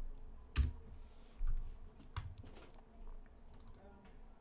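A few scattered computer keyboard keystrokes and mouse clicks, with a soft thump about a second and a half in.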